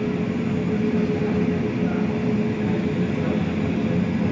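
Airbus A380's four Rolls-Royce Trent 900 engines running at taxi power: a steady low rumble, with a faint steady hum on top that fades about three seconds in.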